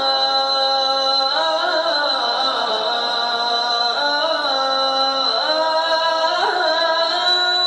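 A voice singing a naat, a devotional song in praise of the Prophet, in long held notes with sliding, ornamented turns between them.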